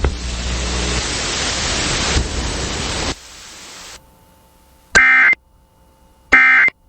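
FM radio static hiss for about three seconds that cuts off, then two short, harsh data bursts about a second apart: the Emergency Alert System's end-of-message (SAME) tones closing the severe thunderstorm warning broadcast.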